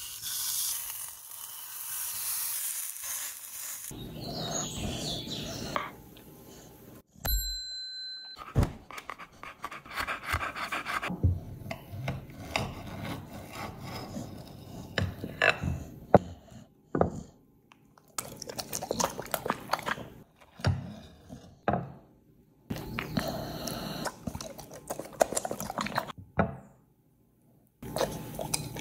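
Beef steak sizzling as it sears in an oiled frying pan, then a short ringing tone about seven seconds in. After that, a knife and fork scrape and click on a ceramic plate as the cooked steak is cut, in short separate bursts.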